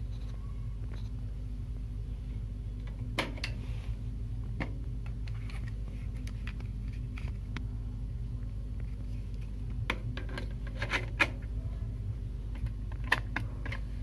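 Steady low electrical mains hum, with scattered clicks and plastic rustles as an audio cassette and the cassette deck's door are handled, the clicks bunching together near the end.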